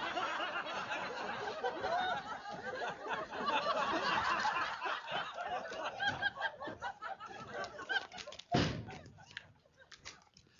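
Sitcom audience laughter, thinning out after several seconds. About eight and a half seconds in, a door slams once.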